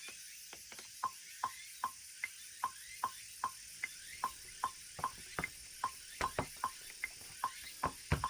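Steady rhythmic clicking, about two and a half clicks a second, each a short pitched tick; a few extra, sharper clicks come in near the end.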